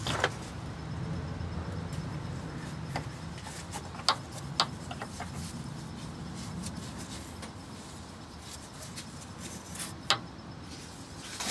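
Handling noise as a fuel line's push-on fitting is worked off a canister fuel filter: a few scattered light clicks and knocks, sharpest about four seconds in and about ten seconds in, over a steady low hum.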